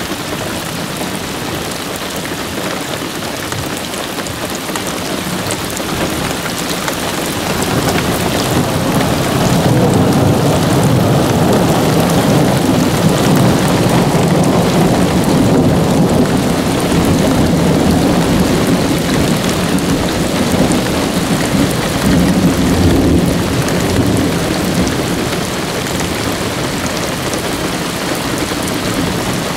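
Rain falling steadily through a thunderstorm, with a long roll of thunder that builds from about six seconds in, rumbles on for some fifteen seconds and fades near the end.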